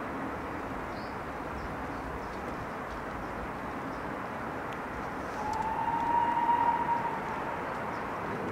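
Distant steam locomotive whistle from the approaching GWR Castle-class engine: one steady high note lasting nearly two seconds, about five and a half seconds in. It sounds over a steady rush of gale-force wind and rain on the microphone.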